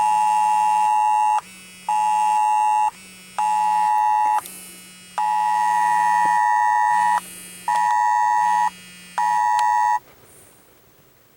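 Emergency alert attention tone from a phone, the harsh two-tone blare of a Wireless Emergency Alert, sounding in a long-short-short cadence twice and then stopping. It signals a tornado warning for the area.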